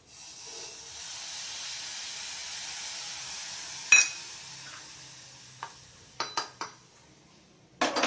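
Water poured into a hot stainless steel pan of okra hisses and sizzles, holding steady for about four seconds before dying away. A sharp, ringing metal clink comes about four seconds in, followed by several lighter clinks of a spatula against the pan near the end.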